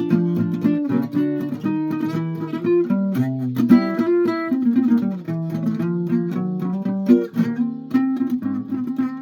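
Guitar being played, a steady run of plucked notes and strummed chords with changing pitches.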